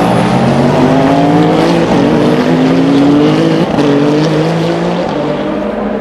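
Race car engine accelerating hard, its pitch climbing, with an upshift about three and a half seconds in, then climbing again before it starts to fade.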